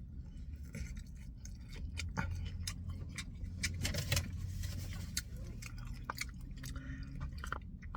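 Close-miked chewing of a Chipotle steak bowl, with scattered small mouth clicks.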